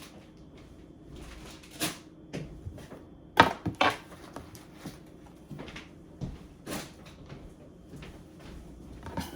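Kitchen clean-up clatter: scattered knocks and clunks of things being moved and put away, the loudest two close together about three and a half seconds in.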